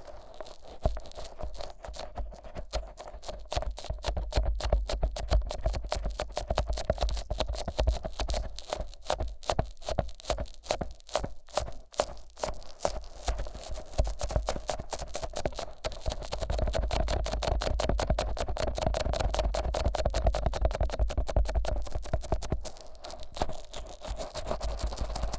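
Vaseline-coated fingers rubbing and massaging the silicone ears of a 3Dio binaural microphone, in quick, close, sticky strokes. Partway through it turns into a steadier, smoother rubbing for several seconds, then goes back to separate strokes near the end.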